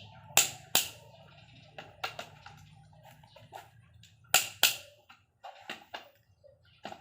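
Sharp metallic clicks and knocks of hand tools on engine parts during engine assembly. The loudest come as two quick pairs, one near the start and one past the middle, with lighter taps scattered between.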